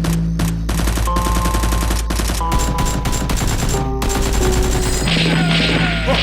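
Rapid automatic gunfire, volley after volley of quick shots, over background music; the shooting stops about five seconds in.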